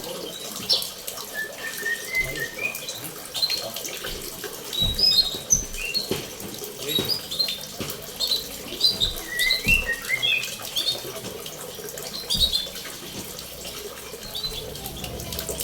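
Small songbirds chirping in an aviary: many short, high, quickly gliding notes from several birds at once. They sound over a steady rush of running water, with a few soft low thumps.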